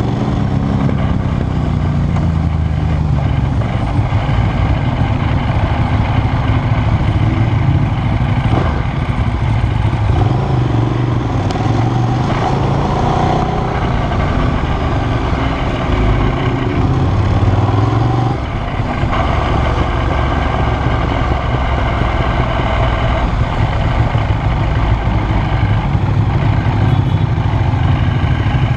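Ducati Streetfighter 848's L-twin engine running under way at town speeds, heard from the handlebars; the engine note rises and falls with the throttle and eases off briefly about two-thirds of the way through.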